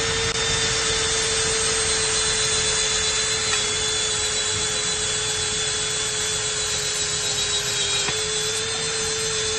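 APR AP17 cordless impact drill running continuously at a steady high speed: a constant motor whine over a rough rasping noise, its pitch sagging slightly twice as if under load.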